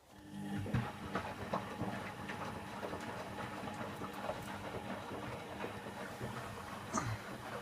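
Candy Aquamatic 1000T compact washing machine starting up suddenly and running on an empty descaling wash: a steady low motor hum with continuous rattling and clicking.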